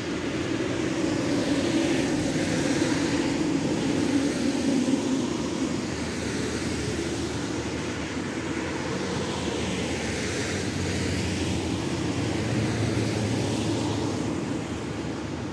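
Tram running along the track: a steady rumble with a low hum that swells and eases a little.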